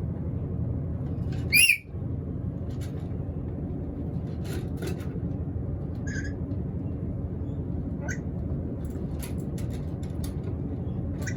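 A black-capped lory gives one loud, harsh squawk about a second and a half in, then a few faint short calls and clicks, over a steady low background rumble.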